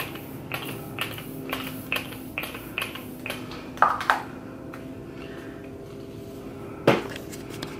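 Fenty setting spray pump bottle spritzing mist onto a face: a quick run of short hissing sprays, about two a second, stopping about four seconds in. One sharp knock near the end.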